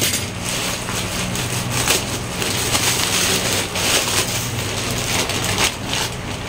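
Plastic shipping bag being opened by hand, rustling and crinkling continuously as the bag inside is pulled out.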